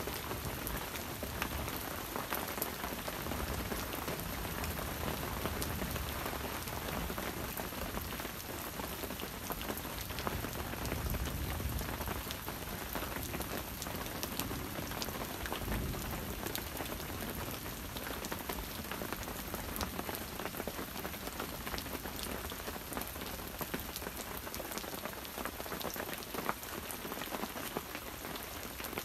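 Steady rain falling on the forest, with many close individual drops ticking sharply through the even hiss.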